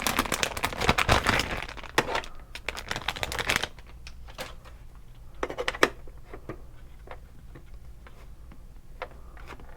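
Packaging crinkling and rustling as it is handled, dense for about the first three and a half seconds, then only a few scattered crinkles and clicks.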